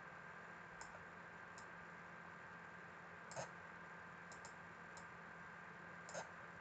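Faint, scattered computer mouse clicks, about seven in all, the two loudest about halfway through and near the end, over a quiet steady hum.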